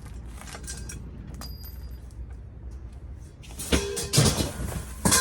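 A steady low rumble, then from about three and a half seconds in a loud run of metallic clattering and scraping with a brief ringing tone.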